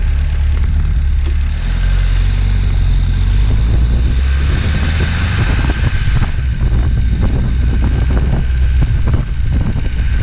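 1978 MGB's 1.8-litre four-cylinder engine running while the car is driven, with wind and road noise over it.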